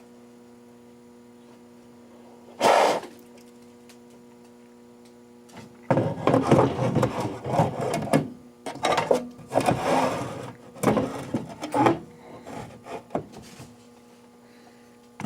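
A short, loud puff of air blown into the fire alarm control panel to clear dust, followed by several seconds of irregular rustling and knocking as parts inside the panel are handled. A steady low hum runs underneath.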